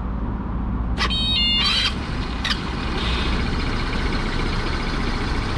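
Vento Max 200 scooter engine idling steadily just after starting, with a brief high-pitched squeak about a second in. The starter has been freshly cleaned and greased, and its start-up squeal is now practically gone.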